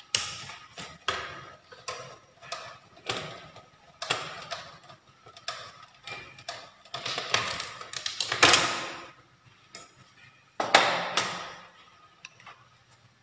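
Hands working parts loose inside an open stereo amplifier's metal chassis: a run of irregular clicks and knocks, with longer scraping and rustling as circuit boards and wiring are pulled free, loudest about two-thirds of the way through.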